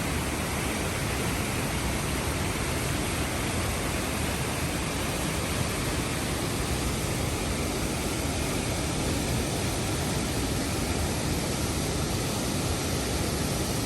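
Waterfall pouring: a steady, unbroken rush of water that starts abruptly and holds level throughout.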